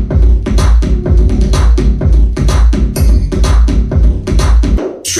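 Song played loud through a soundbar and subwoofer: heavy bass under a steady electronic drum beat, the bass dropping out briefly near the end.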